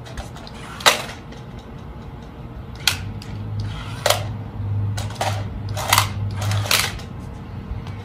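Terrasect remote-control transforming car's plastic body clacking against concrete about six times as it flips, with a steady low motor hum from about three seconds in to near the end.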